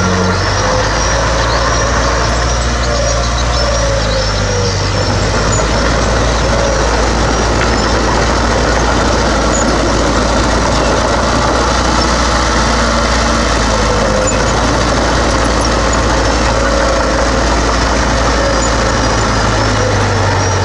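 Heavy diesel earthmoving machinery running steadily, a deep continuous engine drone under a dense mechanical din.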